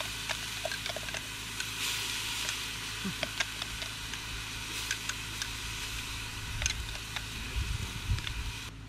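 Chilli paste sizzling and spitting in very hot oil in a cast-iron camp oven over a high campfire flame, with a steady hiss and many small crackles, and a spatula stirring it. A low rumble comes near the end.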